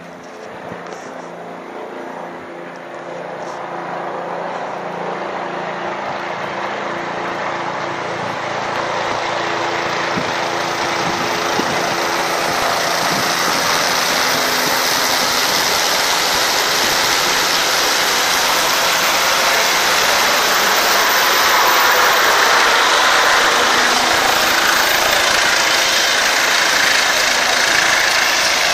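Four-bladed air ambulance helicopter approaching overhead and coming in to land, its rotor and turbine noise growing steadily louder over the first twenty seconds, then holding loud and steady as it settles toward the pad.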